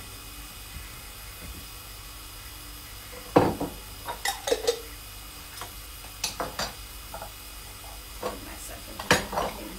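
Kitchenware and jars clinking and knocking as they are moved about on the worktop, in several short clusters from about a third of the way in, over a low steady sizzle of crumbed fish shallow-frying in a pan.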